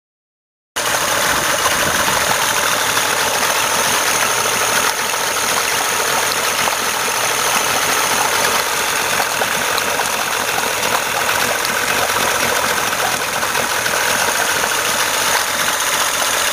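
1995 Evinrude 60 hp three-cylinder two-stroke outboard idling with the cowl and front air box off, starting abruptly about a second in. It runs a bit rough: the timing has just been reset to 4 degrees after top dead centre and the cleaned carburettors are not yet adjusted.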